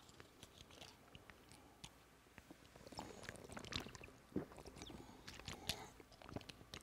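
Faint small clicks and mouth and swallowing noises of a man taking a drink close to his microphone.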